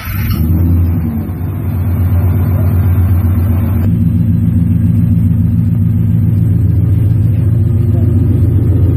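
Ford Coyote 5.0 V8 in a 1958 F-100 running through Flowmaster mufflers, a deep steady exhaust rumble. It swells briefly about a second in, and its tone shifts about four seconds in.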